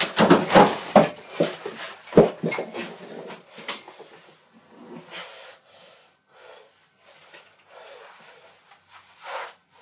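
A few sharp knocks and bumps as a person moves about on a hard floor in a small room, followed by a run of short, heavy, snorting breaths roughly once a second.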